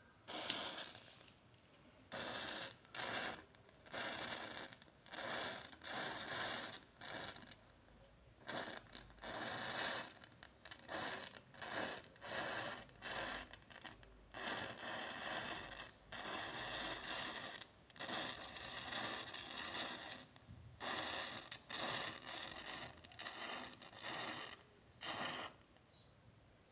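A row of upright matchsticks igniting one after another: a sharp pop as the first head catches, then match heads flaring in turn, each with a short hiss, roughly one a second.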